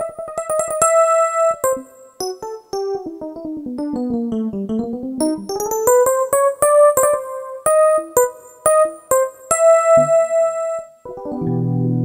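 Roland GR-20 guitar synthesizer on its 'Wide E.P' electric piano patch, played from a MIDI guitar. It plays a quick line of single notes: fast repeated notes at first, then a run that falls and climbs back up. Near the end a sustained low chord comes in.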